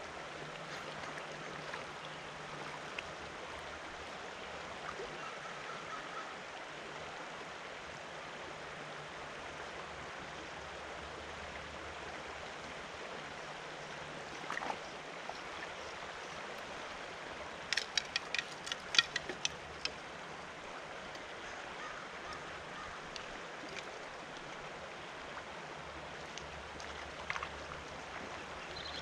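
Shallow, rocky stream flowing steadily, with a quick run of sharp clicks about two-thirds of the way through.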